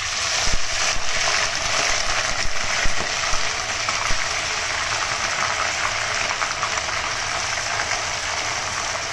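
Raw duck meat sizzling as handfuls are dropped into hot mustard oil in a kadai: a steady frying hiss that starts suddenly as the first pieces hit the oil. A few soft knocks in the first few seconds as more meat goes in.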